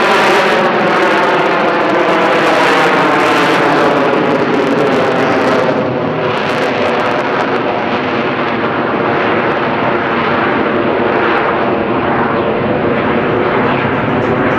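AV-8B Harrier II's Rolls-Royce Pegasus turbofan engine running loud and steady, its tone slowly falling; the high hiss thins out about six seconds in.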